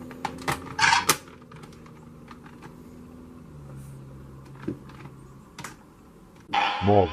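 Edited transformation-belt sound effects in the Kamen Rider Decade driver style: a run of sharp mechanical clicks and a short hiss over a low electronic hum. Near the end comes a loud electronic blast with a wavering pitch that cuts off abruptly.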